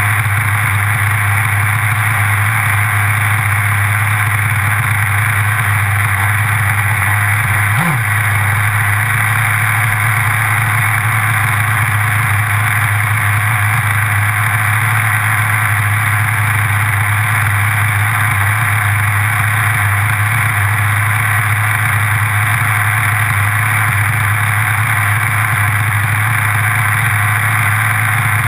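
Nitro RC buggy engine, heard from a camera mounted on the car, idling steadily, with a brief drop in pitch about eight seconds in.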